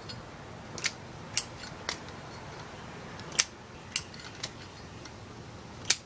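A Zippo lighter's metal lid being flipped open and snapped shut while the lighter is twirled in the hand: about seven sharp metallic clicks and clinks at uneven intervals, the loudest two about halfway through and near the end.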